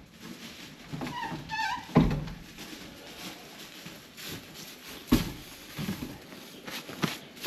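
A goat bleats once, briefly and wavering, about a second in. Two dull thumps follow, about two and five seconds in.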